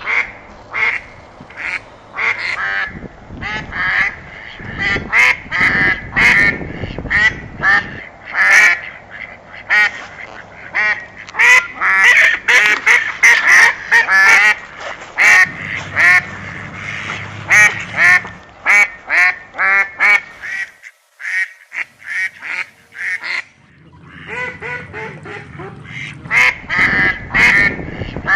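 Geese honking, many short calls repeating and overlapping, with a lull of about three seconds roughly three-quarters of the way through.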